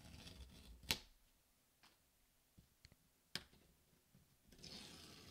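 Faint tearing of the paper pull-tab seals on a MacBook Pro box, with a sharp tick about a second in and another a little past three seconds.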